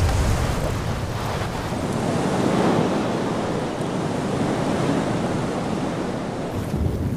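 Strong wind gusting, buffeting the microphone with an uneven low rumble under a steady rushing hiss.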